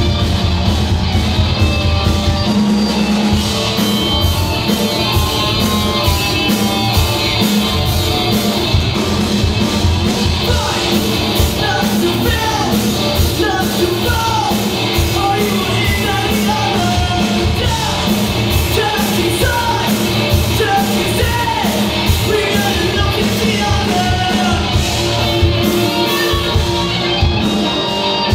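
A live rock band playing with electric guitars, bass, drums and keyboard. A lead vocalist sings over it from about ten seconds in.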